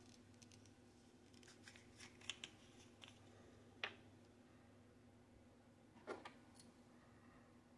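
Near silence with a low steady hum and a scattering of faint clicks and taps, from small tools and locomotive parts being handled while the model is cleaned and greased. The sharpest taps come about four seconds in and about six seconds in.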